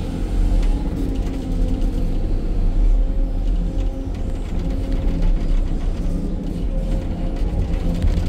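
Hydraulic excavator running while it digs with its bucket, heard from inside the cab: a steady, loud low engine drone with a few steady tones above it.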